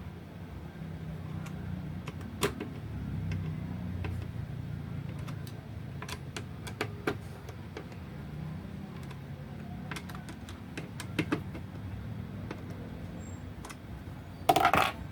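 Scattered small clicks and taps of metal parts being handled and screws tightened during PC assembly, over a steady low hum, with a louder rattling clatter lasting about half a second near the end.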